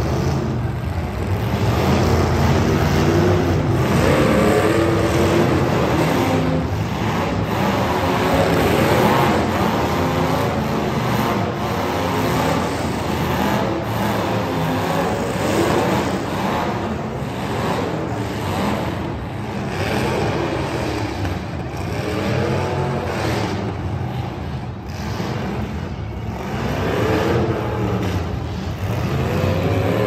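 Demolition derby cars' engines running and revving, with the pitch rising and falling several times over a dense, steady engine noise.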